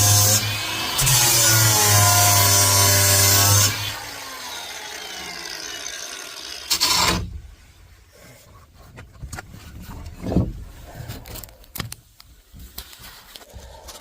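Electric power tool sanding the fiberglass transom. The motor's pitch wavers under load, then it is switched off a few seconds in and winds down with a falling whine. A knock follows, then light handling clicks.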